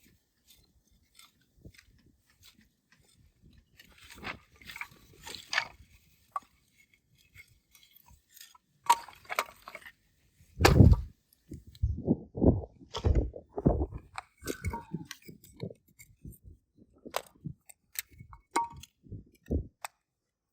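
Scattered handling noises: crunching and clinking, then a run of heavier knocks and thuds about halfway through, the first of them the loudest.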